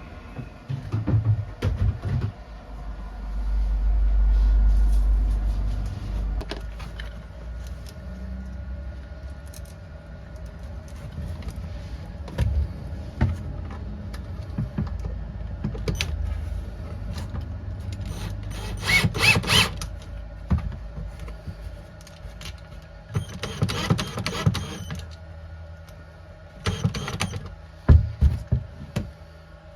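Hands-on work noises: scattered clicks and knocks, a low rumble early on, and several short bursts of noise, the longest about two seconds.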